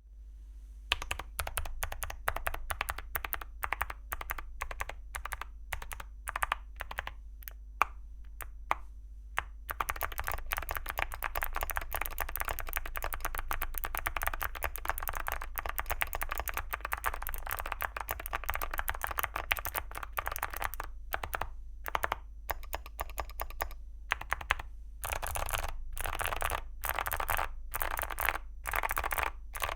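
Leobog Hi75 mechanical keyboard with Gateron Melodic clicky switches and ceramic keycaps being typed on. For about the first third it gives separate clicky keystrokes one at a time. After that it runs into fast continuous typing, slows to scattered presses, then speeds up again near the end.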